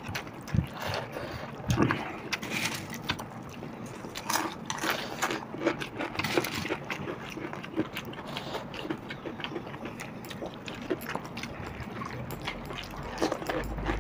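Hands mixing and scooping pakhala, rice soaked in water, on plates, with chewing: a string of small, irregular wet smacks and clicks.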